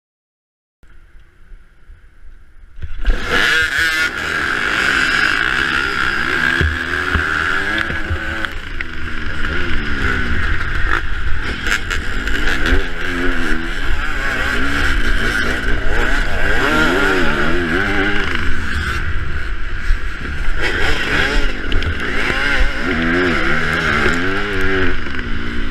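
Dirt bike engines at full throttle in a race start pack, led by the rider's own Yamaha YZ250F four-stroke single, the pitch rising and dropping again and again through gear changes, with wind rumble on the helmet camera. The engines come in loud and sudden about three seconds in, after a short faint stretch.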